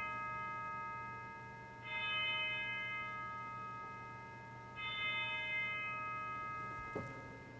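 Altar bell struck at the elevation of the chalice: single strokes about two seconds and five seconds in, each ringing on and fading, over the fading ring of a stroke just before. A short knock comes near the end.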